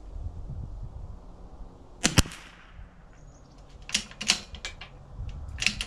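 A single shot from a Bergara B14R .22 LR bolt-action rifle about two seconds in: a sharp crack with a short echoing tail. About two seconds later comes a quick string of sharp metallic clicks, the bolt being worked to eject the case and chamber the next round, with more clicks near the end.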